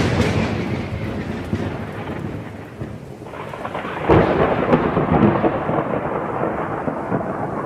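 Thunder over heavy rain: a rumble fading from a clap just before, then a second loud clap of thunder about four seconds in that rolls away slowly.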